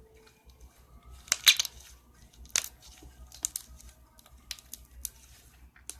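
Slime being handled by hand, giving off a string of irregular sharp clicks and pops, the loudest cluster about a second and a half in.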